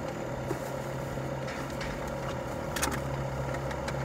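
Car engine idling steadily, heard from inside the cabin as a low even hum, with a brief click about three seconds in.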